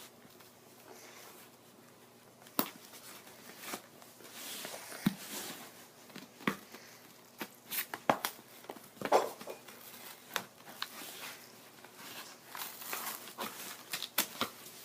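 Packaging handled and opened by hand: crinkling and tearing, with scattered sharp taps and clicks as items are moved about.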